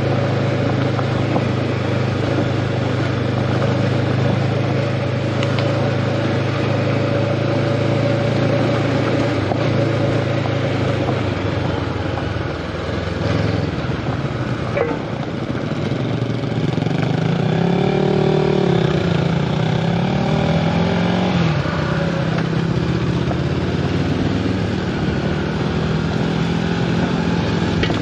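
Honda CB500X's parallel-twin engine running under way, holding a steady pitch for roughly the first ten seconds, then easing off and revving up and down a few times in the second half, over a constant hiss.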